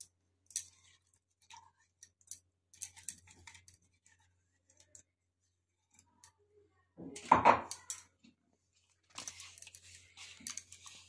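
Scraping and light clinking as wet ground spice paste is scraped out of a mixer-grinder jar onto a fish head in a steel bowl, with a louder knock about seven seconds in and denser scraping near the end.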